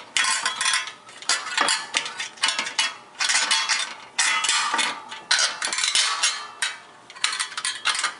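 Metal hardware clinking and rattling in quick irregular bursts as fender brace stays are slipped over the axle of a coaster-brake rear wheel in a bicycle frame.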